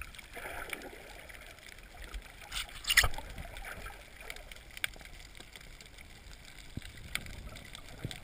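Water noise picked up by a GoPro underwater in its housing: a low, steady wash with scattered short clicks and one louder sudden swish about three seconds in.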